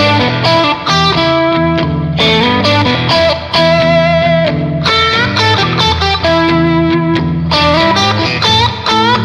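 Blues music: an electric guitar playing bending lead licks over a backing band.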